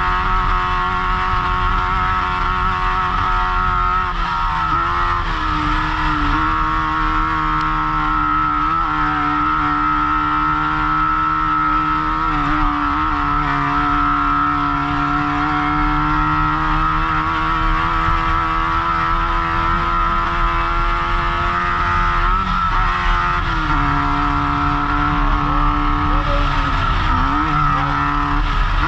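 Off-road race car engine held at high revs, heard from inside the car, with brief dips and recoveries in engine speed every few seconds over a steady rough rumble.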